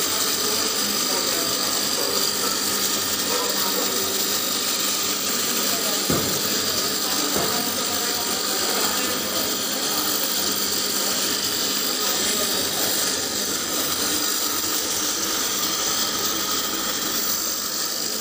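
Floating fish feed extruder machine running steadily: an even hiss with several held tones, and a short knock about six seconds in.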